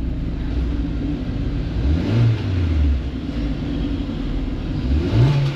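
A Kia's engine idling, then revved briefly twice, pitch rising and falling about two seconds in and again near the end. It is being revved to check that calculated load climbs toward 90%, a quick test of the mass airflow sensor while chasing a P2191 fuel-trim code.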